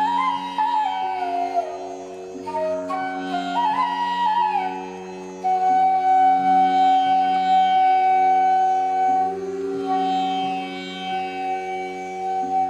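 Indian classical-style instrumental background music: a flute melody sliding between notes over a steady drone, settling into a long held note about five seconds in.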